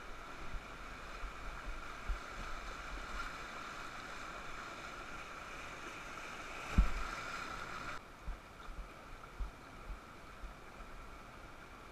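Whitewater rapids rushing around an inflatable raft, with one loud thump about seven seconds in; the rushing falls away about a second later as the raft reaches calmer water.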